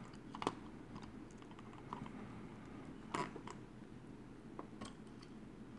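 A few faint clicks and crackles from flux and solder as a soldering iron heats copper desoldering braid on a circuit board's solder joint; the clearest come about half a second in and about three seconds in, over a low hiss.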